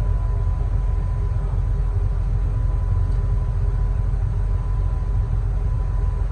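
Excavator diesel engine running steadily, heard from inside the cab: a dense, unbroken low rumble with a faint steady high tone above it.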